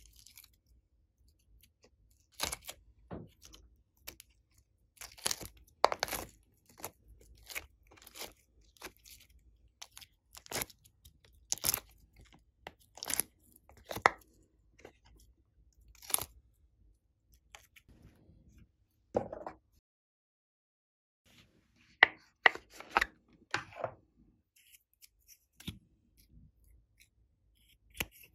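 Sticky peeling and crackling as soft modelling clay is pulled off a plastic mould and pressed onto slime: irregular short snaps and clicks, with a cluster of louder ones a little after the middle.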